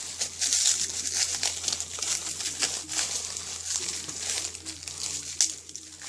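Packaging wrap crinkling and rustling in irregular bursts as a lightsaber hilt is unwrapped.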